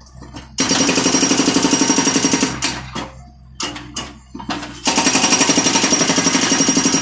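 BTI hydraulic breaker on a John Deere excavator hammering concrete in two bursts of rapid, evenly spaced blows, each about two seconds long. Between the bursts come scattered knocks of the chisel and broken concrete, over the low steady hum of the machine.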